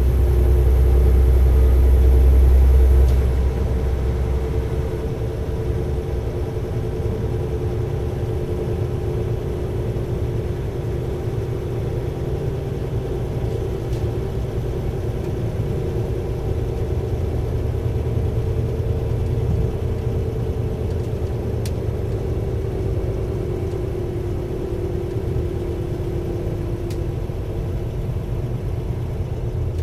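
Diesel engine of an Alstom LINT 41 H diesel multiple unit running steadily, a low hum with a couple of steady droning tones. A deep rumble and a faint high whine drop away about three seconds in, leaving a steadier hum.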